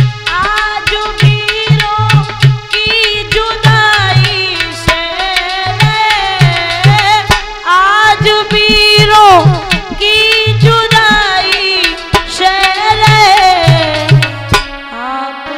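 A woman singing a slow, sliding melody with tabla accompaniment.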